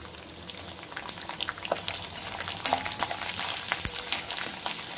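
Garlic cloves frying in hot sesame oil in a kadai: a crackling sizzle that grows louder from about a second in, with a metal spoon stirring and clinking against the pan.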